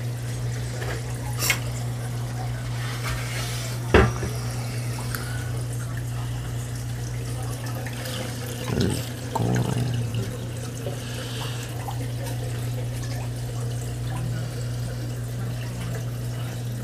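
Reef aquarium running: a steady low pump hum with water trickling through the system. A sharp knock comes about four seconds in, with a lighter click before it.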